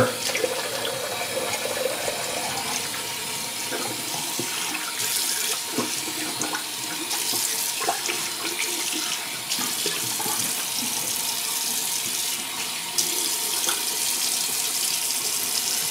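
Cold water running steadily from a bathroom sink tap, with irregular splashing as the face is rinsed after a shave.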